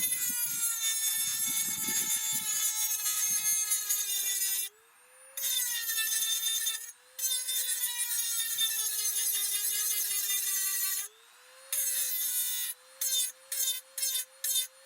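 High-speed rotary tool (Dremel) with a cutoff wheel cutting through a weld: a high whine that sags in pitch as the wheel bites, run in several long stretches, then in short quick bursts near the end.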